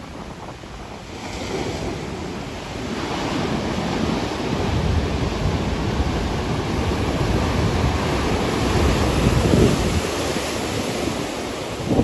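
Rough sea surf: waves breaking and white foam washing up close to the shore, growing louder over the first few seconds and loudest near the end, with wind buffeting the microphone.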